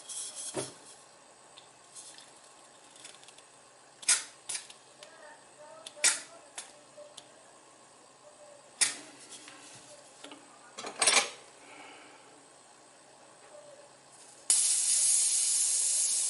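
A few small clicks and taps of metal parts being handled, then, near the end, a sudden steady hiss of butane gas rushing through a pipe lighter's filler valve as the tank is charged and purged of excess air.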